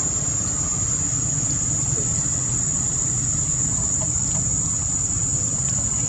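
Steady, high-pitched insect drone of the forest, held on one unbroken tone, over a low steady rumble.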